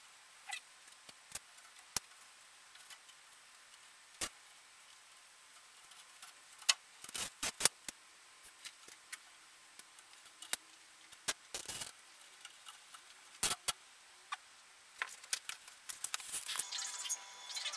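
Light, scattered clicks and wooden knocks from thin wooden strips being handled and fitted onto a skin-on-frame canoe frame. There are sharper clusters of knocks about seven and about eleven seconds in.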